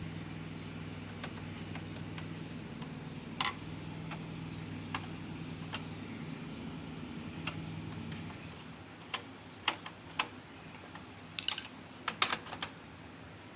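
Scattered sharp clicks and taps of small hard objects being handled, several in quick clusters near the end, over a steady low hum that stops about eight seconds in.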